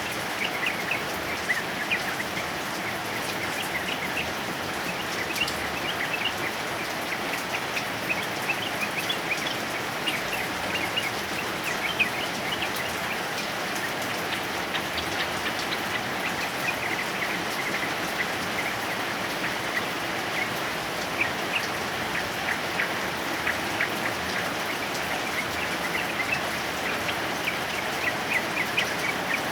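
Steady heavy rain, with short chirping notes of a yellow-vented bulbul scattered through it.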